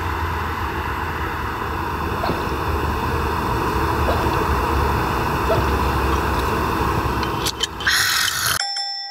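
Steady drone of a fan heater running inside the tent, a low hum under an even whir. Near the end there is a brief rustle, and then the sound cuts off abruptly.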